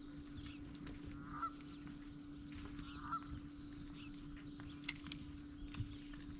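Two short honking calls about two seconds apart, faint over a steady low hum, with a few light knocks near the end.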